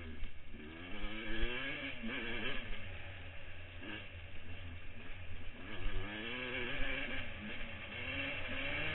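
Motocross dirt bike engine, heard from the rider's helmet camera, revving up and dropping back again and again as the rider works the throttle and shifts through the gears on the track.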